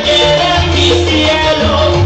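Loud salsa-style Latin dance music played over a sonidero street sound system, with a heavy bass line.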